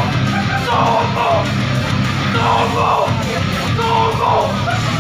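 Loud rock music with guitar playing over a venue's PA speakers, heard through a crowded room.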